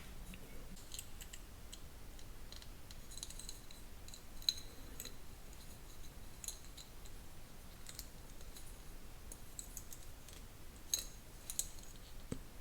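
Small plastic model-kit parts clicking and tapping as they are handled and pressed together during assembly: scattered faint clicks, with a sharper one about four and a half seconds in and two more near the end.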